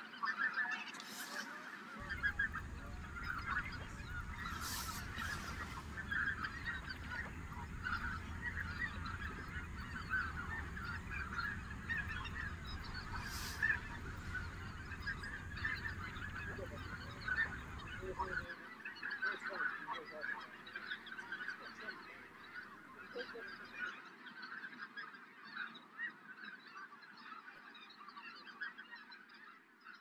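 A large flock of geese honking, many overlapping calls at once, the chorus fading toward the end.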